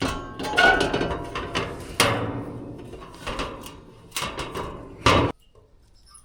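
Metal clanks and knocks as the condenser fan motor assembly is handled and flipped over: several sharp impacts with ringing, the loudest about two seconds in and again just after five seconds, then they stop.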